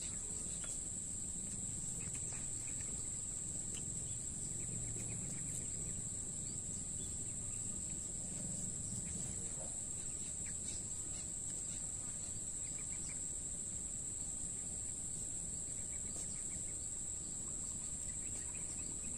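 Insects in a steady, unbroken high-pitched chorus, with a faint low background hum beneath.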